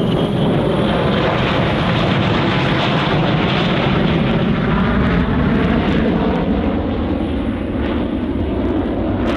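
Northrop B-2 Spirit stealth bomber's four General Electric F118 turbofan jet engines passing by, a loud, steady jet noise that eases slightly near the end as the bomber pulls away.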